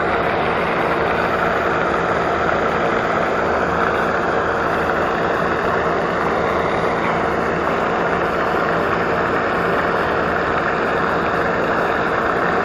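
Pond fountain running: a steady rush of spraying and falling water over a low, even hum.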